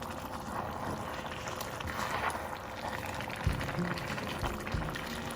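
A pot of eru greens with palm oil being stirred, with wet liquid sounds and a few dull low thumps around the middle.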